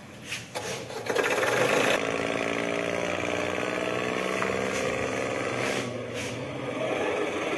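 Tractor engine sound effect, a steady, fast-chugging drone that starts about a second and a half in, after a few short knocks.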